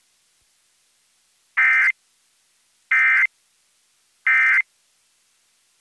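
Emergency Alert System end-of-message (EOM) code: three short bursts of digital data tones, about a second and a third apart, that mark the end of the alert.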